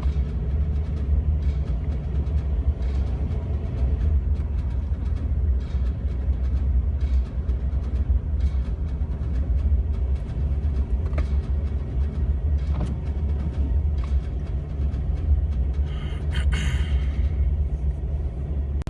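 Steady low rumble of a Jeep Wrangler TJ driving through about four inches of unplowed snow, engine and tyres heard from inside the cab. A brief rustle or clatter comes near the end.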